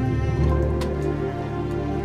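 Slow background music of long held notes, with a couple of light taps about half a second and just under a second in.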